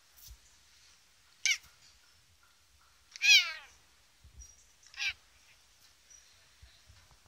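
Bengal cat meowing three times: a short high call about a second and a half in, a longer, louder meow falling in pitch about two seconds later, and another short call near the end.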